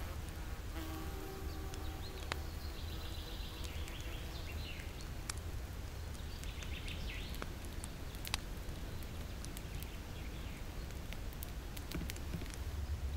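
An insect buzzing, with scattered faint clicks.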